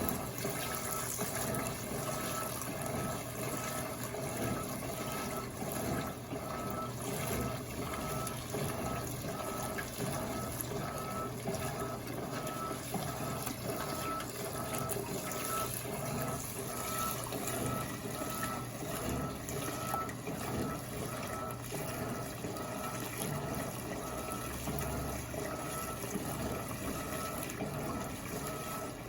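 LPE 16 washing machine filling its tub with water: a steady rush of water, with a faint high tone coming and going.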